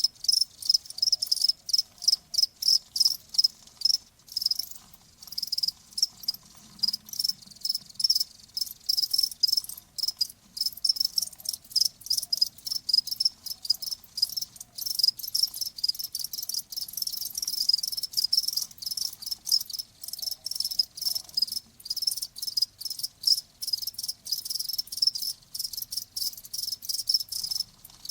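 Crickets chirping in a steady, rapid series of high-pitched chirps, a few a second.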